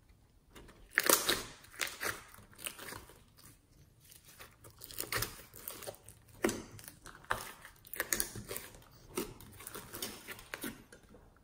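Blue glitter slime with floam beads being squeezed and kneaded by hand: irregular clusters of wet squelches, crackles and small pops, starting about a second in.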